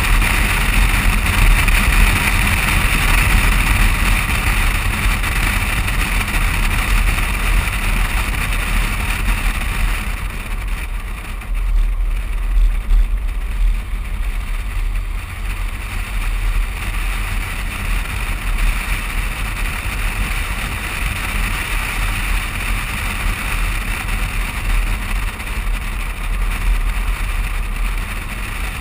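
Road and wind noise from a moving vehicle, heard through a camera mounted outside on its side near the front wheel: a steady rush of air and tyres with a deep rumble underneath, the hiss easing somewhat about ten seconds in.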